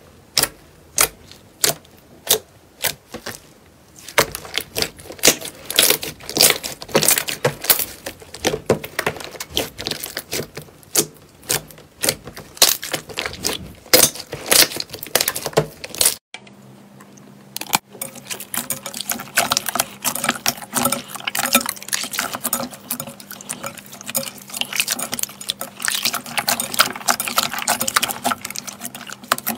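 Slime being worked by hand, giving sharp sticky clicks and pops: single clicks about twice a second at first, then a dense run of crackling. About two-thirds of the way through, the sound cuts to another stretch of crackling and popping over a faint steady hum.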